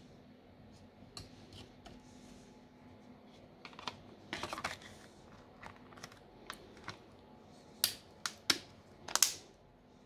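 Plastic back cover of an Infinix Smart 7 phone being pressed onto the frame, its edge clips snapping into place as a series of sharp plastic clicks, the loudest coming in quick succession near the end.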